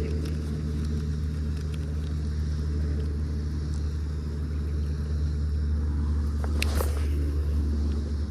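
Steady low motor hum running evenly throughout, with a couple of brief sharp clicks near the end.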